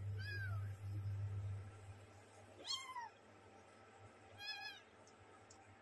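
Young kittens mewing: three short, high-pitched mews, one near the start, one in the middle and one later. A low hum sits under the first two seconds.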